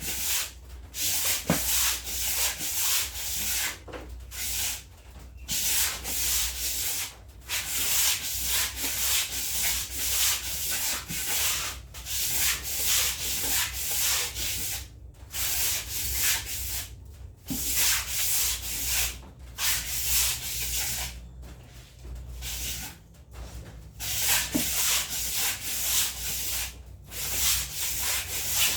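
Hand scrubbing: rapid back-and-forth rubbing strokes on a surface, a few a second, in runs broken by brief pauses.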